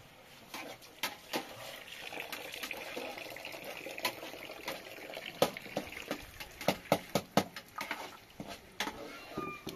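Cooking over an open wood fire: sharp crackles and clicks over a soft hiss, with a ladle stirring in a pot on the fire. The clicks come thicker in the second half.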